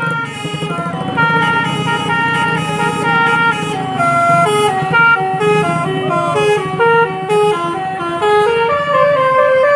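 Bus 'telolet' Basuri multi-trumpet musical horn playing a quick tune, several horn notes sounding together and stepping up and down in pitch every fraction of a second. Beneath it runs the bus engine's low steady hum.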